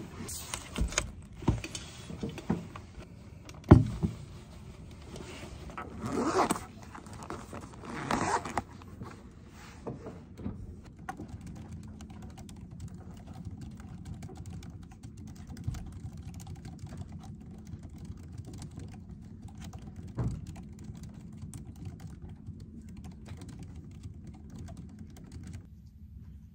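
Things being handled on a wooden desk: a few knocks, one sharp knock about four seconds in, and two brief rustles around six and eight seconds. Then light, steady typing on a MacBook Pro laptop keyboard, over a low steady room hum.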